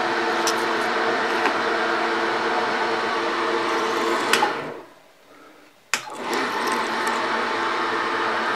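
Milling machine spindle motor running steadily while power-tapping 10-24 holes. About four and a half seconds in the motor winds down and stops, and about a second later a sharp switch click brings it back running.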